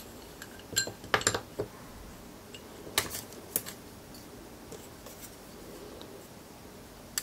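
Eachine Tyro129 carbon fiber frame plates and arms clicking and clinking against each other as they are handled and set down: a scatter of short, sharp clicks, the loudest about a second in and about three seconds in.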